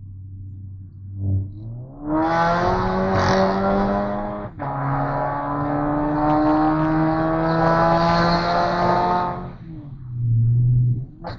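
Volkswagen Jetta 2.0 TSI turbocharged four-cylinder pulling hard under full throttle: the engine note climbs, breaks with a sharp crack at an upshift about four and a half seconds in, then climbs more slowly through the next gear. It drops back to a low, steady note as the throttle lifts near the end.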